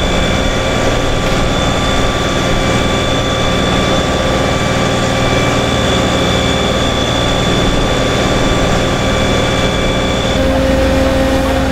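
Fire-truck diesel engines and pumps running steadily, a continuous drone with a thin high whine over it. About ten seconds in the high whine stops and a lower hum gets stronger.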